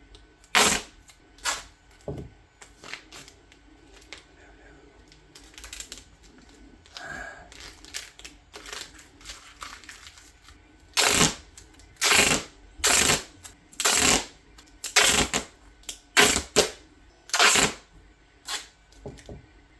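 Duct tape being pulled off the roll and torn in short rips, one after another. The rips are sparse at first, then come louder at about one a second in the second half.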